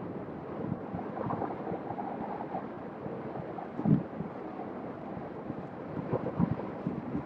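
Wind rushing over a hand-held phone's microphone while riding an electric unicycle, with a brief low thump about four seconds in and a smaller one a couple of seconds later.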